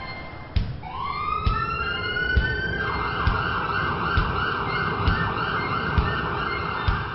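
Cartoon ambulance siren sound effect: it winds up, rising in pitch for about two seconds, then warbles rapidly at a steady pitch, over a steady low background beat.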